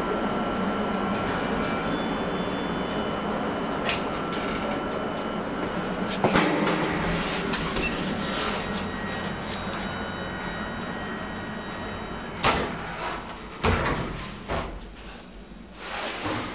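Star Lift machine-room-less traction lift's automatic sliding doors opening with a rushing hiss about six seconds in, after a steady hum. Near the end come a few sharp knocks as the buttons are pressed and the doors close.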